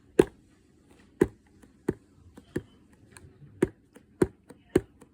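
Hands opening and handling a newly arrived package of fidget toys: a series of about a dozen irregular sharp clicks and taps, the loudest just after the start.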